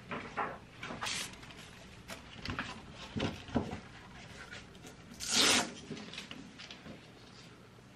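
Handling noise: a disposable gown rustling and a clear plastic face shield being handled, in short scattered rubs and light knocks, the loudest a longer rustle a little past halfway.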